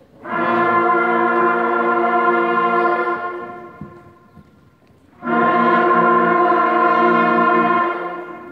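Sixth-grade concert band of woodwinds and brass playing two long held notes together, each about three seconds long, with a short pause between them.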